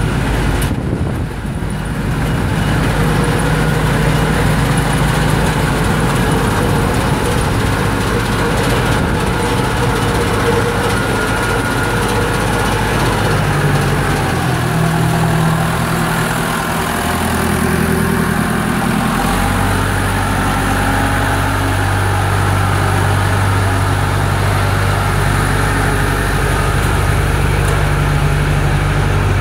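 Massey Ferguson 168 tractor's four-cylinder Perkins diesel engine running steadily. Its note shifts partway through, then holds steady again.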